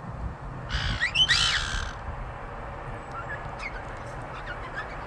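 Parrot giving a loud, harsh squawk about a second in, followed by a few faint short chirps.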